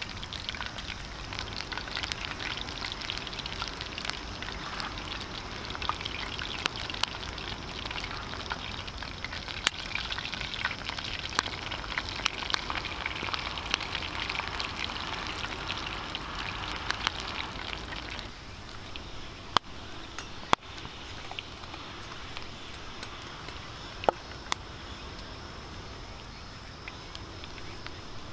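Hot oil sizzling steadily as kushikatsu skewers deep-fry, a dense fizz of tiny crackles. The sizzle eases about two-thirds of the way through. A few sharp pops stand out after that.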